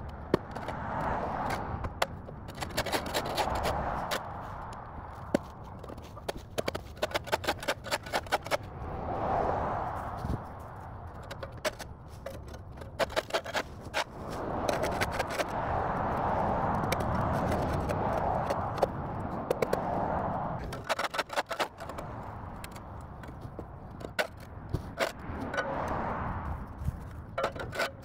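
A steel shovel scraping and chopping dirt and grass off a concrete sidewalk edge, in clusters of rapid sharp scrapes and knocks. Between the clusters, the noise of traffic passing on the street swells and fades.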